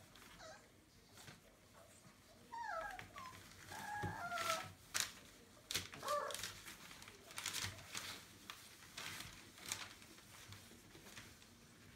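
Entlebucher Mountain Dog puppies giving a few short, high-pitched squeaky whines in the first half, with newspaper crinkling and paws scratching throughout.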